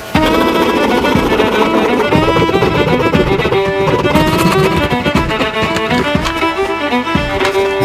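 Background music with a violin carrying a fast melody over a lower accompaniment.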